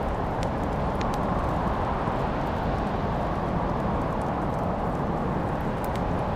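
Wood fire burning in a fireplace: a steady low rush of flame with a few sharp crackles and pops scattered through it.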